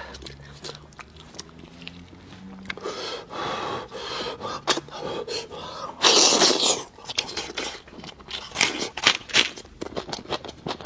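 Close-up chewing and crunching of meat on the bone, with many short wet clicks and scrapes and one louder noisy burst about six seconds in.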